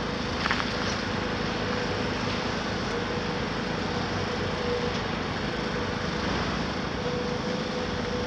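Caterpillar 374F demolition excavator's diesel engine running steadily, with a whine that comes and goes and a brief higher scrape about half a second in.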